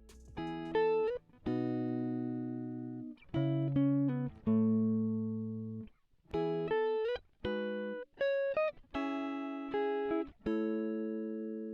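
Background music on guitar: plucked chords and single notes, each struck and left to ring and fade.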